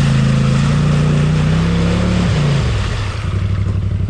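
Polaris ATV engine held at high revs, pulling through mud, then the throttle comes off about two seconds in and it drops to a lower, lumpy, pulsing run.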